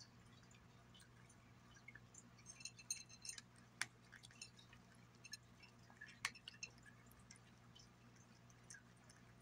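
Domestic cat eating from a glass plate: faint chewing and small clicks and clinks of teeth and food against the glass, starting a couple of seconds in, with two sharper clicks around four and six seconds in.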